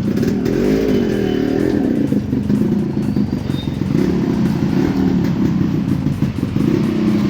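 Yamaha RX100's two-stroke single-cylinder engine running, its pitch rising and falling with the throttle.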